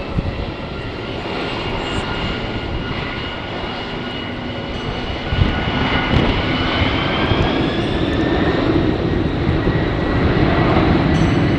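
Jet airliner engines running with a steady noise and a whine that rises slowly in pitch, growing louder from about halfway through.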